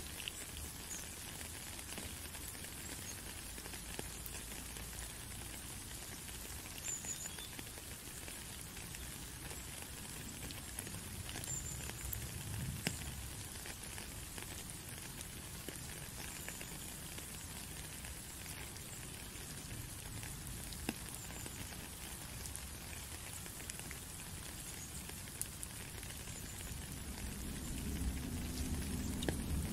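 Steady rain falling on a puddle and wet gravel, an even hiss of drops pattering on the water. A low rumble builds near the end.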